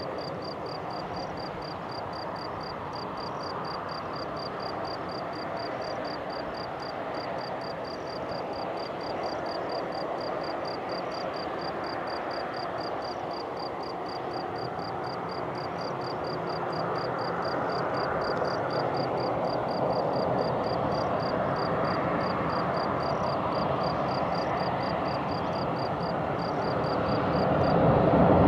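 TAROM Boeing 737-300's CFM56 jet engines running as it rolls along the runway, a steady rushing hum that swells somewhat past the middle and then grows sharply louder near the end as thrust comes up for takeoff. A high, regular chirping repeats several times a second.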